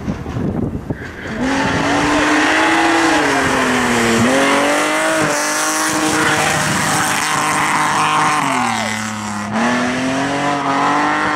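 Race car engine running hard at high revs, coming in loud about a second and a half in. Its pitch sags and then jumps back up twice, near the middle and near the end.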